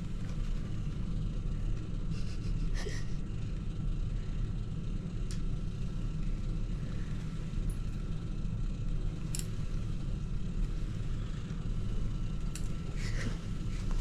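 Steady low background rumble, with a faint steady high tone above it and a few soft clicks scattered through.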